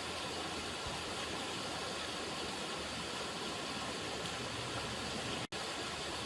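River water running in a steady, even rush, cutting out for an instant about five and a half seconds in.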